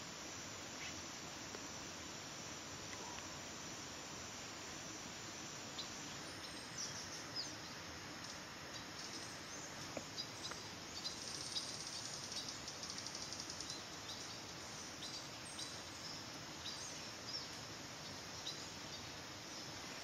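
Tropical forest ambience: a steady hiss of insects, with short high chirps starting about six seconds in and a rapid insect trill partway through.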